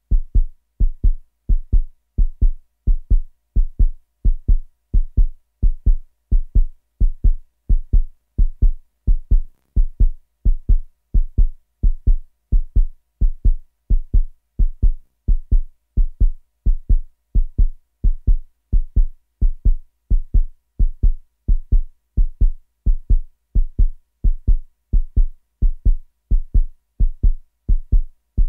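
A quick heartbeat sound effect: low, evenly spaced thumps repeating steadily, a couple or more each second.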